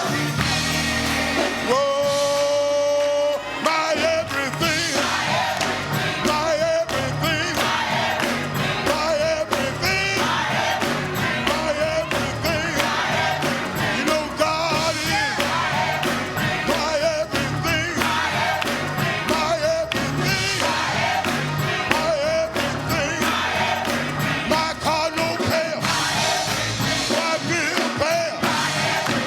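Gospel music with singing over a full band, running continuously at a steady level.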